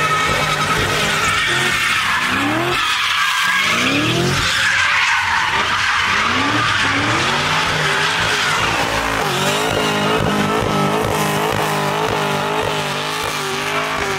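Car doing donuts: tyres screeching continuously while the engine revs up in several rising sweeps, then holds high revs with a quick, regular wobble in pitch for the last few seconds.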